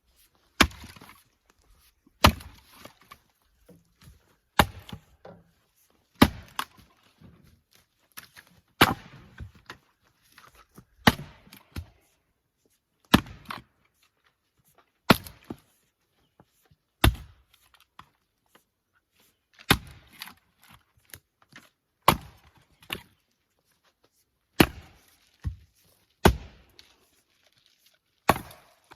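Splitting axe striking firewood rounds, a sharp chop about every two seconds.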